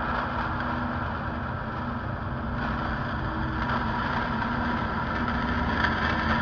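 Dark ambient drone: a dense, low rumble under several steady held tones, running evenly with no beat.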